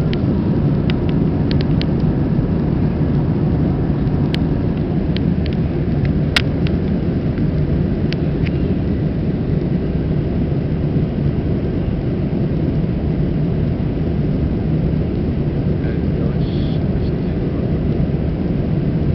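Steady cabin noise of an Airbus A321 airliner in flight: a dense low rumble of engines and airflow at an even level, with a few light clicks about four and six seconds in.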